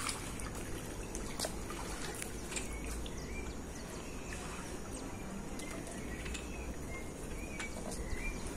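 Faint birds chirping now and then over soft trickling and sloshing of pool water as a skimmer net is drawn through it.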